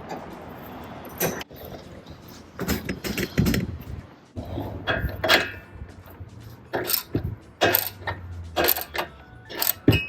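Metal hand tools fastening an adjustable stabilizer link rod on a car's suspension: irregular sharp clicks and knocks of a wrench or ratchet on the link's nuts.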